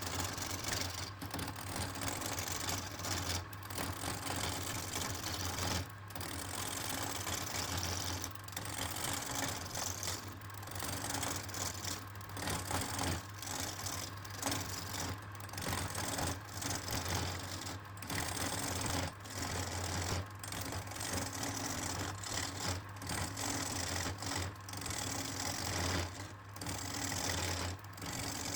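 Electric woodturning lathe running, its motor giving a steady low hum, while a turning tool cuts the spinning wood with a hiss that keeps breaking off for a moment and coming back.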